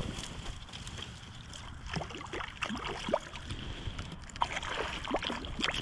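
Water sloshing and splashing at the bank's edge in short bursts as a hooked pickerel is brought in to shore, over a low rumble of wind on the microphone.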